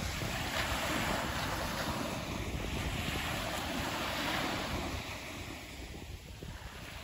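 Small ocean waves breaking and washing up a sandy beach, with wind buffeting the microphone. The surf eases off about five seconds in as the wash draws back.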